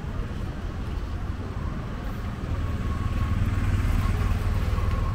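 City street traffic: a steady low engine rumble of motorbikes and cars that grows louder about two and a half seconds in.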